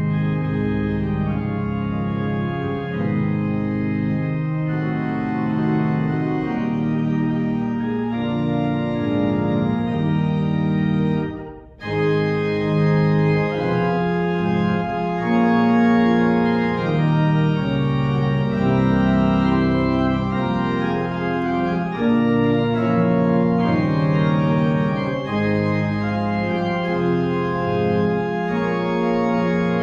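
Organ playing slow, sustained chords, with a brief break about twelve seconds in.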